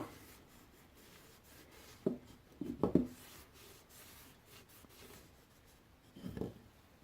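Faint rubbing as linseed oil is worked into a wooden hammer handle, with a few light knocks about two to three seconds in and a softer one near the end.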